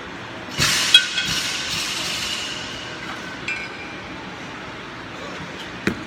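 Gym noise of metal clanking and clinking, with a loud ringing clatter about half a second in that dies away over the next two seconds. Just before the end, a sharp thud as a pair of kettlebells is set down on the rubber floor.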